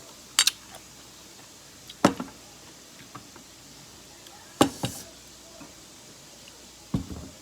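Four sharp knocks, spread a couple of seconds apart, from kitchen utensils being handled and struck against something hard.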